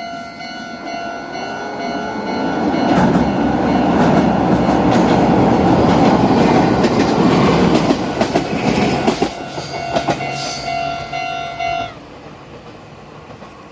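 Level-crossing alarm bells ringing steadily while a Meitetsu 6000 series electric train runs through the crossing. The rush of wheels on rail builds from about three seconds in, with clacking over the rail joints as the last cars pass. The crossing bells stop about two seconds before the end.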